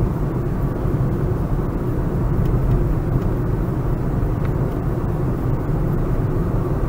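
Steady engine and tyre noise of a car driving, heard from inside the cabin.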